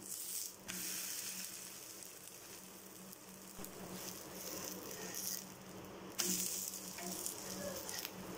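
Adai dosa sizzling in oil on a hot dosa tawa. The sizzle jumps up sharply about half a second in and again, louder, about six seconds in.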